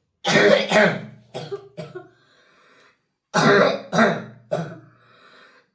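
A twelve-year-old boy's coughing fit: two bouts of coughing about three seconds apart, each opening with two loud coughs and trailing off into two weaker ones. It is the chronic, long-undiagnosed cough that leaves him unable to catch his breath.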